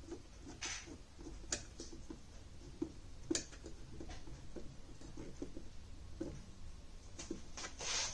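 Hand screwdriver driving a screw into a metal TV-mount bracket: scattered light clicks and ticks at irregular intervals, with a louder rustle near the end.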